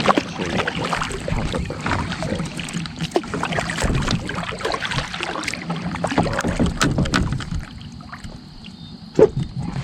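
Kayak on the water: splashing and repeated knocks against the hull, quieter for the last two seconds, with one sharp knock near the end.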